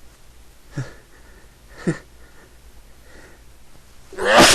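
A person in a sneezing fit: two short, sharp breaths in the first two seconds, then a loud sneeze near the end.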